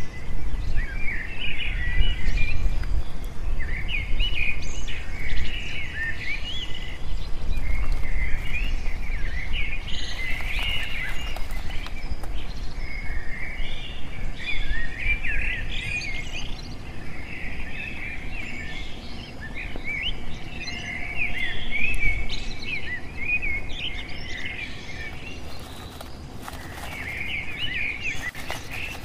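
Small birds chirping and twittering continuously in many short, quick notes, over a low rumble of wind or handling noise on the microphone.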